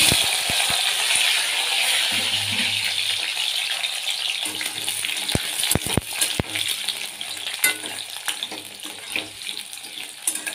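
Freshly cut, washed potato pieces sizzling in hot oil in an aluminium kadai: a loud hiss that starts suddenly as they go in and slowly dies down as the water cooks off. Around the middle come a few sharp clicks of a spatula against the pan as the potatoes are stirred.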